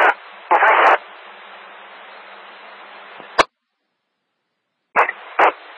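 Police scanner radio between transmissions: a short burst of static, then open-channel hiss with a faint hum. A sharp click about three and a half seconds in cuts the channel to silence, and the channel keys up again near the end with two brief bursts of static.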